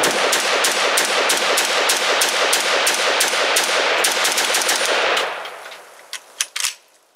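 MARCOLMAR CETME-L roller-delayed rifle in 5.56 NATO firing Aquila ammunition in rapid semi-automatic fire, about three shots a second. The shots stop about five seconds in and their ring fades, followed by a few sharp clicks.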